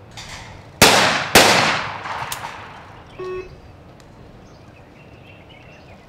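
Two 12-gauge over-and-under shotgun shots at a skeet double, about half a second apart, each cracking sharply and echoing away over a second or more. A light click follows, then a short beep about three seconds in.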